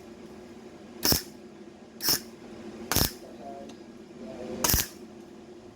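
MIG welder laying short tack welds on the sheet steel of a rusted car door, four brief crackling bursts about a second apart.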